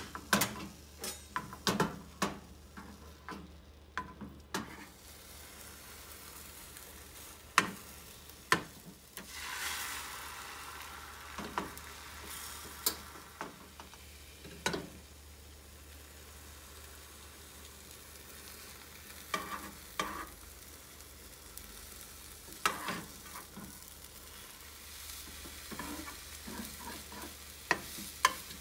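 Beaten egg sizzling in a rectangular tamagoyaki pan, with scattered sharp taps and scrapes of a utensil against the pan as the omelette is rolled. The sizzle swells for a few seconds about a third of the way in.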